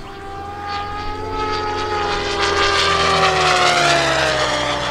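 Electric JR Forza 700 radio-controlled helicopter making a fast pass. The whine of its motor and rotor grows louder over the first few seconds, then drops in pitch as it goes by near the end.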